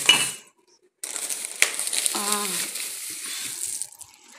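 Plastic grocery bags and packaging rustling and crinkling as groceries are handled on a table, with a brief voice a little over two seconds in.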